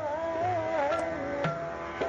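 Hindustani classical vocal in Raag Marwa: a male voice holding and bending a sung note, with a few tabla strokes beneath.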